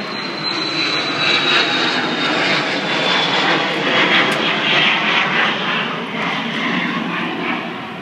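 Aircraft passing overhead: a loud rushing noise that swells to a peak about halfway through and then eases, with a high whine slowly falling in pitch.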